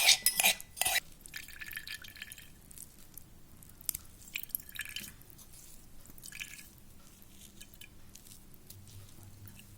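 Pounded ginger and tulsi paste being strained through a sieve: a few sharp utensil clinks in the first second, then soft scraping and ticks as the juice drips through.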